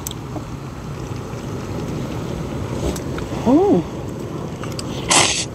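A person eating noodle soup: a short hummed "mm" about two-thirds of the way in, then a loud, brief slurp near the end, over a steady rushing background noise.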